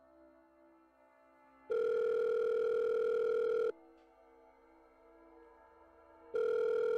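Telephone ringback tone on an outgoing call: the line ringing, two long steady rings about two seconds each, the second starting near the end, the call not yet answered.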